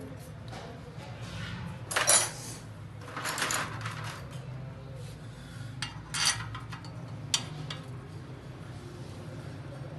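Metal clinking and scraping a few times over a steady low hum, with one sharp click near the end.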